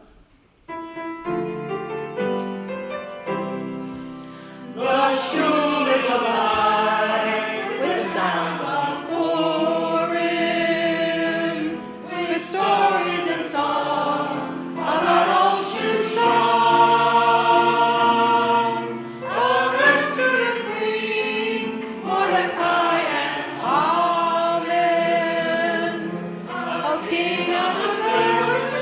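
A group of voices singing a song to instrumental accompaniment, after a few seconds of instrumental introduction.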